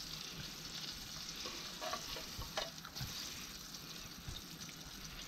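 Battered fish fillets frying in hot oil in a pan: a steady sizzle with fine crackling and a few light clicks.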